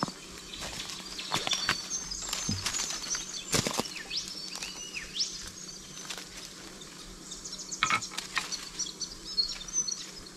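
Footsteps crunching and knocking over dry leaf litter and loose rocks, with small birds chirping and whistling in the bush, mostly in two spells.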